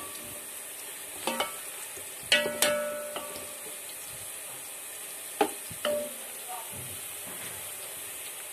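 Sliced onions, still pale and just starting to fry, sizzling steadily in oil in a steel pot. A wooden spoon stirs them and knocks against the pot several times; the louder knocks set the pot ringing briefly.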